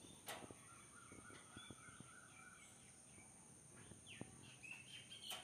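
Near silence, with faint high chirping calls in the background: a short warbling call about a second in, a falling chirp around four seconds, and a few more near the end.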